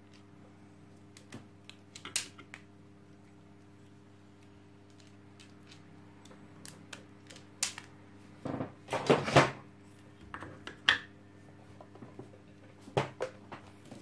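Small sharp clicks and snips of hand tools and wires being worked on a vacuum cleaner's power-cord reel, scattered irregularly, with a louder scraping rustle about nine seconds in. A faint steady hum runs underneath.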